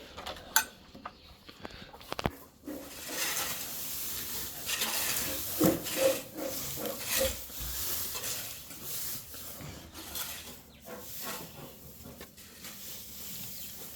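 Dry hay rustling and crackling as it is handled and pulled at by goats feeding, with scattered light knocks and a few short squeaks near the middle.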